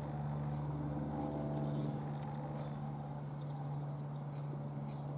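A steady low hum, with small birds chirping now and then in short high notes.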